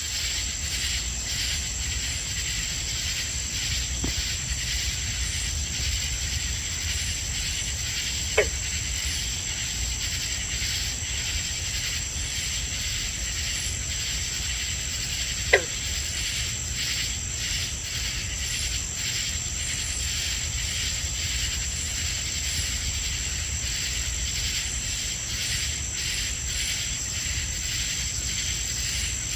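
Night chorus of crickets and katydids at a summer pond: a steady high-pitched trill with a faint fast pulsing beneath it. Twice, once about eight seconds in and again about fifteen seconds in, a short sharp call stands out above the chorus.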